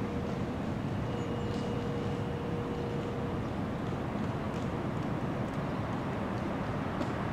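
Alstom Citadis tram approaching along grassed track: a steady low running noise, with a steady whine that stops about three seconds in.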